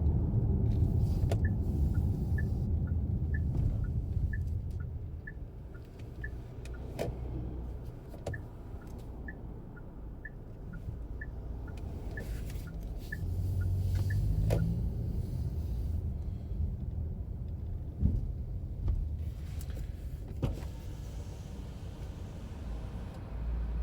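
Car cabin with engine and road rumble. For the first half, a turn-signal indicator ticks in an even two-note tick-tock, about two clicks a second. The engine then picks up with a rising hum around the middle.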